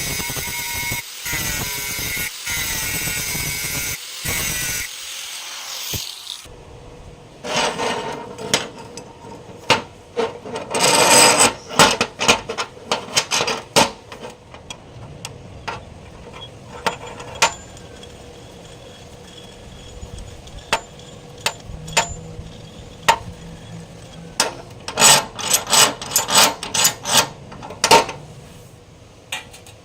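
Background music that stops about six seconds in, followed by hand-tool workshop sounds: irregular scraping and rubbing on metal, broken by sharp clicks and knocks, with denser bursts about eleven and twenty-six seconds in.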